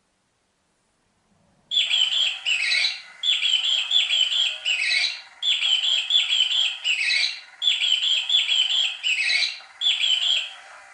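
Battery-powered disk cat toy's squeak setting: a looping electronic bird-like chirping, a few short high chirps then a falling squeak, repeating about every two seconds. It starts suddenly just under two seconds in.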